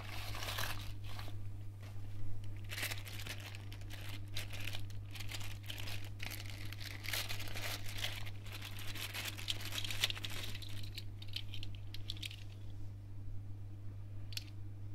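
A padded mailer envelope being torn open, then a thin plastic bag crinkled and pulled open, in irregular bursts of tearing and crinkling over a steady low hum. The rustling dies down about twelve seconds in, leaving a few light clicks of small plastic LED finger lights being handled.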